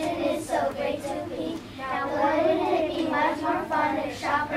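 A group of young children singing together, with a long held note in the middle.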